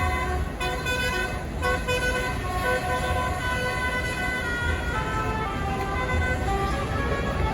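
Tour bus telolet horn playing a melody: a run of held notes that jump to a new pitch about every half second, over a low engine rumble.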